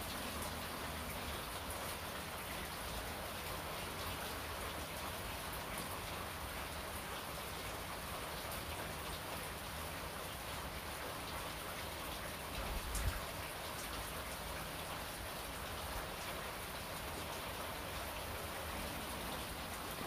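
Steady, even rain-like hiss, with a brief low thump about thirteen seconds in.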